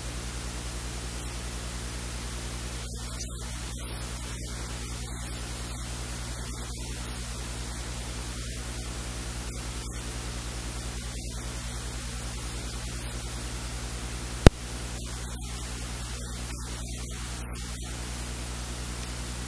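Steady electrical hiss and static with a low mains hum, and a single sharp click about three-quarters of the way through.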